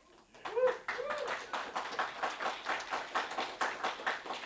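Audience applauding, with a couple of short vocal calls from the crowd about half a second in.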